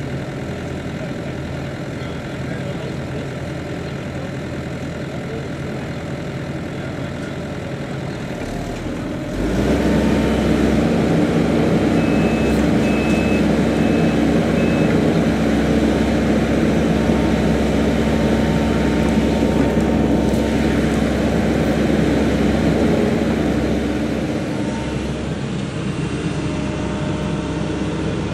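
Engine of a heavy construction machine running steadily, getting clearly louder about nine seconds in, with a short run of high beeps a few seconds later.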